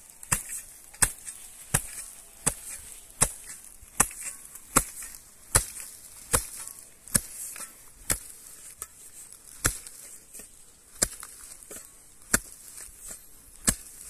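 Steel spade chopping repeatedly into a lifted clump of soil and matted grass roots: sharp strikes about one every three-quarters of a second, slowing to about one every second and a half in the second half.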